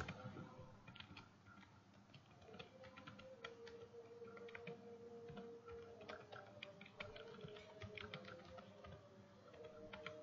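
Computer keyboard typing: faint, irregular keystrokes in short runs separated by brief pauses.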